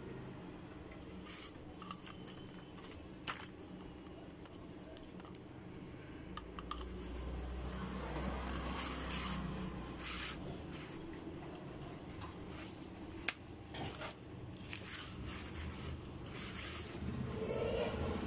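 Faint clicks and scrapes of hands handling the metal thermostat bracket, nuts and element terminals of an opened electric iron, over a steady low hum. A low rumble swells for a few seconds in the middle.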